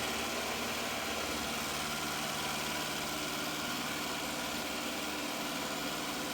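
Shark IQ R100S robot vacuum running a cleaning pass: a steady motor and suction whir with several held tones.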